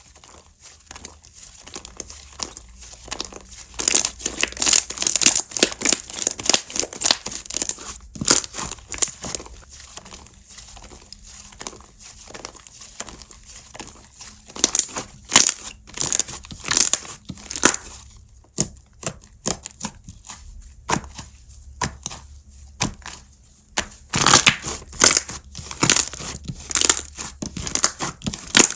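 Slime being squished, stretched and pressed by hand, making crackling, popping clicks that come in bursts of squeezing.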